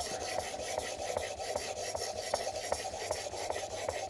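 A steel plane blade held in a Veritas Mk II honing guide is being rubbed up and down on a 1000-grit waterstone: a steady gritty scraping in an even rhythm of strokes, about two and a half a second.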